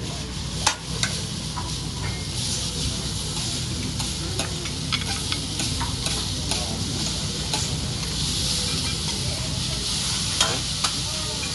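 Food sizzling on a hibachi flat-top griddle, with sharp clicks and scrapes of the chef's metal spatula and knife on the steel as chicken pieces are cut and turned.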